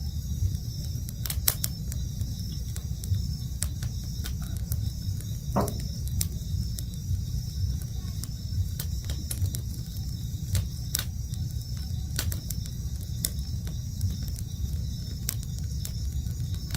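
Campfire crackling with scattered sharp pops, over a steady chirring of night insects in the rainforest and a low steady rumble.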